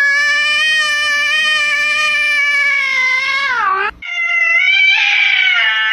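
Two domestic cats yowling, one after the other: a ginger-and-white cat holds one long call that drops in pitch at the end, then, after a brief break, a white cat yowls at its own reflection in a mirror in another long drawn-out call.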